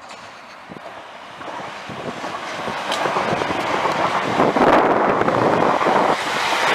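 A train approaching along the track, its rumble and rail noise growing steadily louder over the first few seconds, then staying loud as it draws close.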